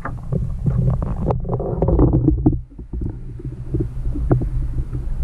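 Muffled audio from an underwater camera: a steady low hum and rumble with scattered clicks and knocks, and a brief stretch of denser swishing noise a little after a second in.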